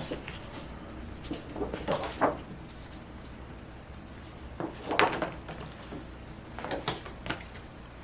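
Handling noises: three short clusters of rustling and knocks, about two, five and seven seconds in, over a steady low hum.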